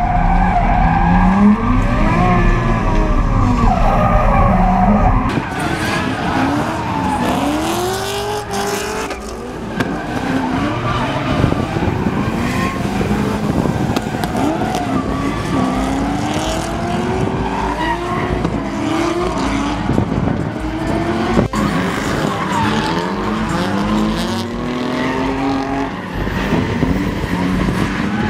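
Drift cars' engines revving hard, rising and falling in pitch, with tyres squealing and skidding as they slide in tandem. For the first five seconds or so the sound is heard on board one of the cars, with a deep low rumble; after that it is heard from trackside.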